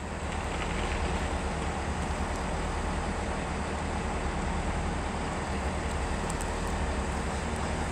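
Steady low rumble with an even wash of running noise from a Class 165 diesel multiple unit.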